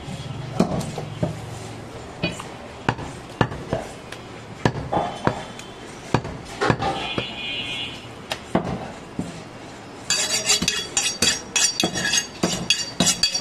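Heavy butcher's cleaver chopping goat meat on a wooden stump block: irregular sharp knocks, then near the end a fast run of strikes with a metallic ring.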